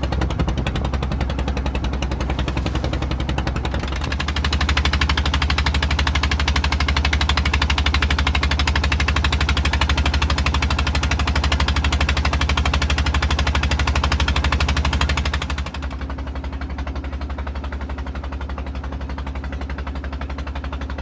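Boat engine running with a rapid, even chugging over a deep hum. It grows louder about four seconds in and eases back near the end.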